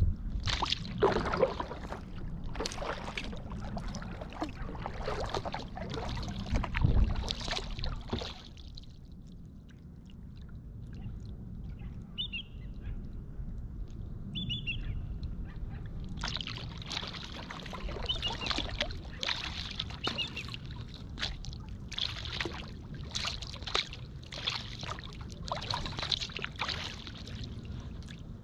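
Kayak paddle strokes splashing through the water in a steady run. They pause for several seconds in the middle, where two short high chirps are heard, then the strokes start again.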